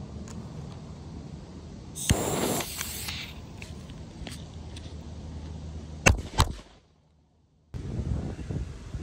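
Small firecrackers going off inside a plastic earbud charging case: a sharp crack with about a second of hissing after it, then about four seconds later two loud bangs in quick succession.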